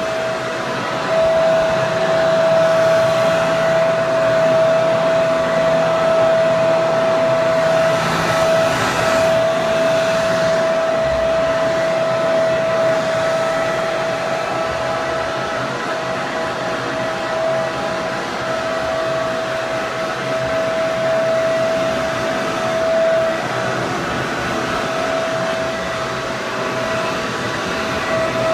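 Hair dryer running steadily: an even rush of air with a constant motor whine, the level swelling slightly now and then.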